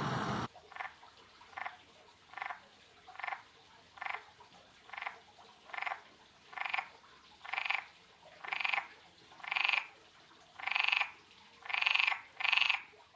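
An animal call repeated about fourteen times, roughly once a second, growing louder toward the end. A steady noise cuts off about half a second in.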